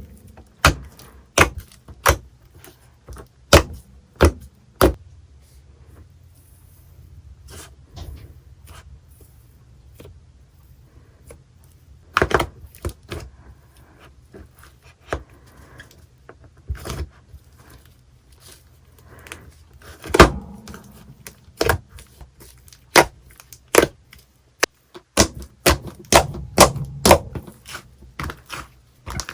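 Slime being squeezed and poked by hand, giving irregular sharp clicks and pops: quick ones at first, sparse in the middle, thick again near the end.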